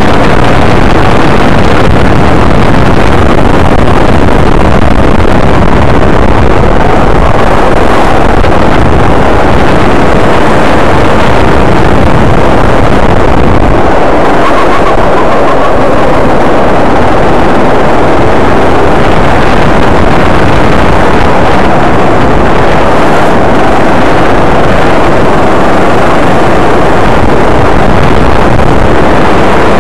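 Go-kart engine running at speed as the kart laps the track, heard from the onboard camera, mixed with wind rushing over the microphone; loud and steady throughout.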